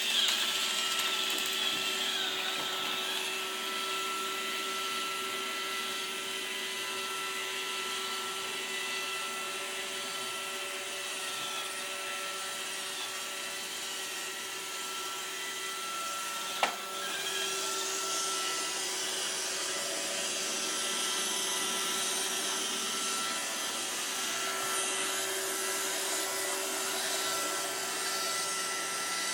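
iRobot Roomba robot vacuum running steadily, its motors giving a hum with several steady whining tones. One sharp knock a little over halfway through.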